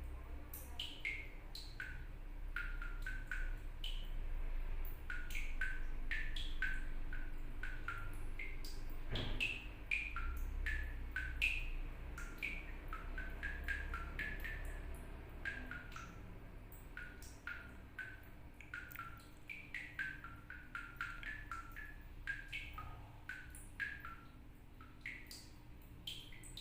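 Water dripping from a tap, each drop landing with a short, pitched plink, several a second in an irregular drumming rhythm. A thump is heard about nine seconds in.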